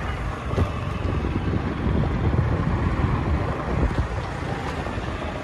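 Wind buffeting the microphone along with road and vehicle noise while moving along a street, a dense steady rumble.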